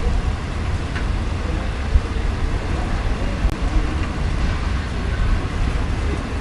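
Freight train of Ferromex boxcars rolling past at close range: a steady, heavy rumble of wheels on rail.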